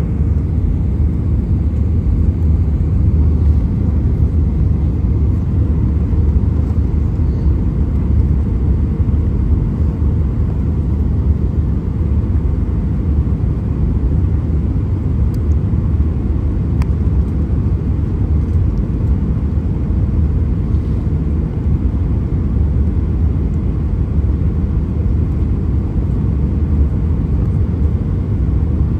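Steady low rumble inside the cabin of an Airbus A319 airliner: engine and airflow noise, even throughout.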